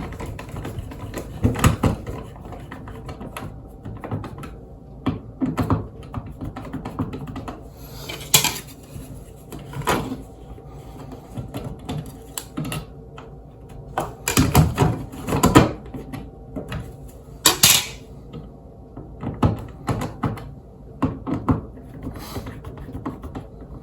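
Irregular clicks and taps of plastic parts being handled and pressed together: a blank insert being fitted and snugged into a switch wall plate.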